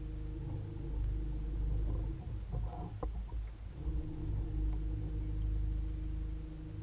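A small boat motor hums at a steady pitch over a low rumble. About two seconds in, the hum stops for a second and a half, with a few short knocks in the gap, then starts again and runs on.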